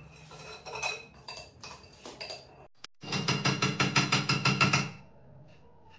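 Dishes and utensils clinking and clattering for a couple of seconds, then after a short break a two-second burst of music with a fast, even beat.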